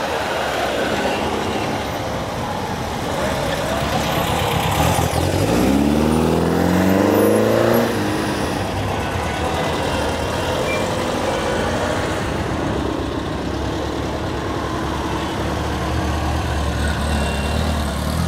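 Classic NSU cars driving slowly past one after another, their small engines running steadily. About five seconds in, one car speeds up past with an engine note that rises for a few seconds.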